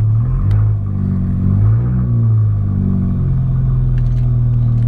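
Mercedes CLA engine blipped twice while stationary, with its exhaust valve open, heard from inside the cabin: the pitch rises and falls twice, then settles back to a steady idle. The open valve gives it a much more 'rock' note.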